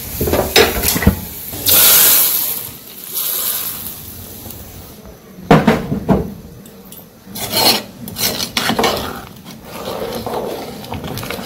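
Metal ladle scraping and knocking against a metal kadai and pot as fried onion tempering is added to boiling lentil dal and stirred in, with a loud hiss about two seconds in and a few sharp clanks later.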